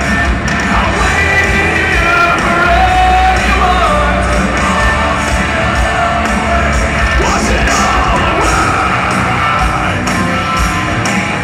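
Live hard rock band playing loudly through the venue's sound system, with a singer yelling the vocals over the band.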